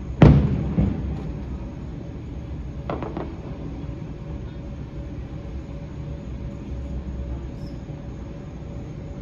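Distant fireworks: one loud boom with a rumbling tail just after the start, and a smaller burst about three seconds in, over a steady low rumble.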